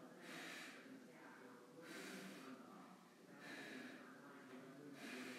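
A person's faint, heavy breathing, one breath about every one and a half seconds, during straight-arm triceps kickbacks with dumbbells, over a faint steady low hum.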